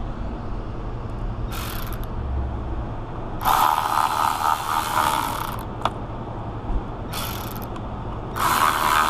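Cordless ratchet running in bursts as it drives fasteners into a truck's rear door glass assembly: a short burst about one and a half seconds in, a longer run of about two seconds, another short burst, and a further run starting near the end.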